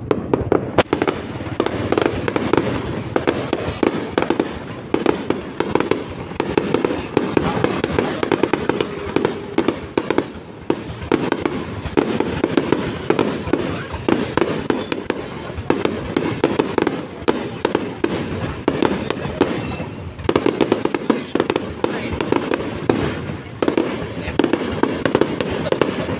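Fireworks going off in a continuous dense barrage of sharp pops and cracks, with no break.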